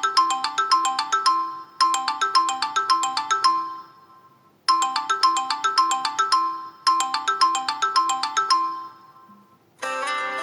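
A Samsung Galaxy Feel's built-in ringtone: a short, quick melody of bright notes played twice in a row, a brief pause, then the same pair again. A different, fuller tone starts just before the end.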